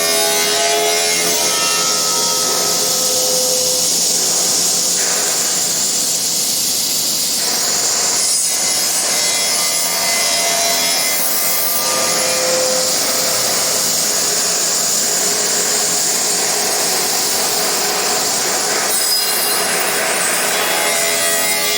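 CNC woodworking machine cutting a wood panel: steady, loud, high-pitched cutting noise that shifts in tone several times.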